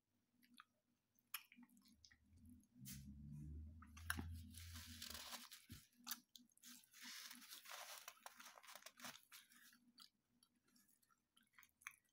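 Faint close-up chewing and crunching of a mouthful of food, in two longer stretches with scattered light clicks between them.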